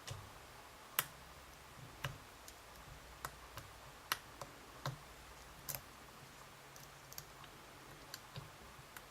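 A lock pick clicking and tapping inside a Yale dimple lock, working the sliders while the lock is under tension: about a dozen faint, irregularly spaced clicks.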